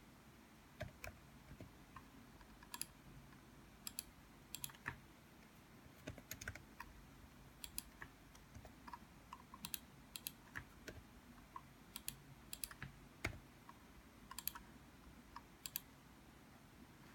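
Faint typing on a computer keyboard: irregular single keystrokes and short runs of clicks, with pauses between them.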